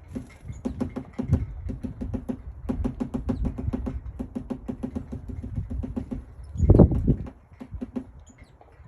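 Great spotted woodpecker pecking at wood: runs of rapid taps, several a second, broken by short pauses. About seven seconds in there is a louder low thump.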